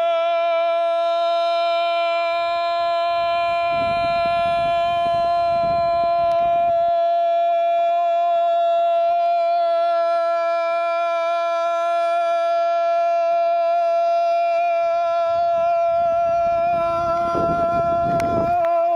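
A man's voice holding the final 'o' of a shouted '¡Panaderooo!' as one long, steady, high note for about nineteen seconds, wavering slightly near the end before it breaks off. It is a breath-holding endurance shout, and the breath runs out.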